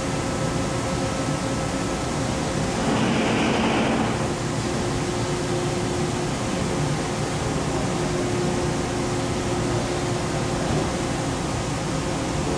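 Komo VR510 Fusion 5-axis CNC router running: a steady machine noise with several held tones. About three seconds in, a louder rush lasts about a second, and after it the tones change.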